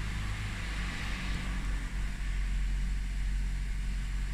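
Toyota C-HR engine idling steadily just after being started, a low, even hum with a lighter hiss that fades out about a second and a half in.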